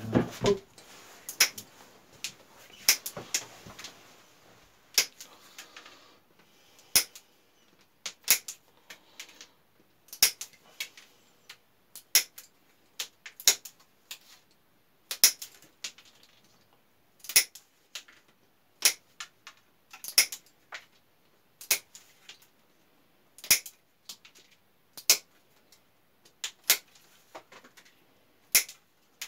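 Pruning shears snipping through willow rod ends one after another, a sharp snap roughly every second: the stake ends being trimmed flush with the weave of a willow basket.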